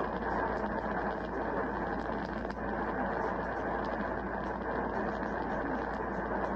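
Steady radio static hiss from a receiver tuned between transmissions, with faint scattered crackles.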